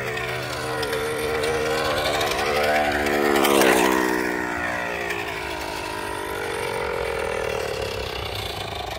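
A tether car's small glow-fuel engine running at speed as the car laps the circular track on its cable, its pitch sweeping up and down as it circles.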